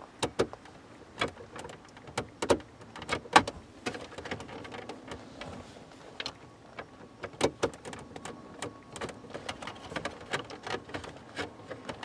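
Screwdriver turning a Torx screw out of the plastic center console trim, making scattered, irregular clicks and taps of metal on screw and plastic.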